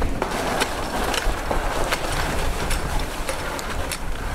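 Crunching, rustling and scattered clicks of a cow and her handler moving about on snowy ground, with harness and rope being handled, over a steady low rumble.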